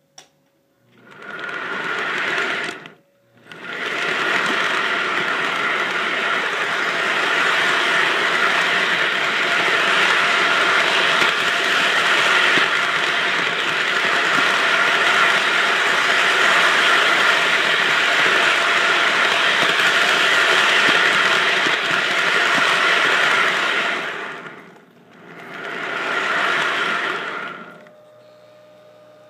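Lionel toy train's electric motor and gears whirring with a steady whine as the train runs on its track, heard close up. It starts about a second in, cuts out briefly, then runs steadily; near the end it stops, starts again for a couple of seconds and stops.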